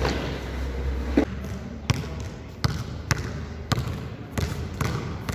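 Basketball bouncing on a hard gym floor, about eight separate bounces as it comes down from a shot and is dribbled. The loudest bounce comes about a second in.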